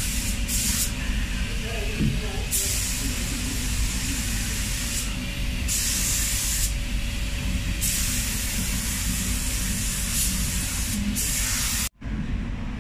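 Paint spray gun hissing in bursts as Awlgrip polyurethane topcoat is sprayed, the trigger pulled for a few short spurts and then longer passes of one to three seconds. A steady low rumble runs underneath, and everything breaks off abruptly near the end.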